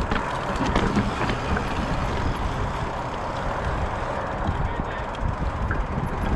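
Mountain bike rolling along a dirt trail: a steady rumble of tyres on dirt, with scattered clicks and rattles from the bike.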